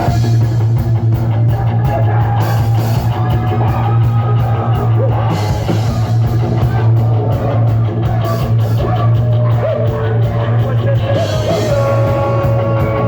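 Rock band playing an instrumental passage: a drum kit over a loud, held bass, with a wavering lead melody above.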